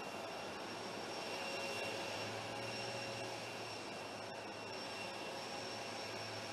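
Steady jet engine noise from aircraft on the apron: a rushing hiss with a high, thin whistle over it.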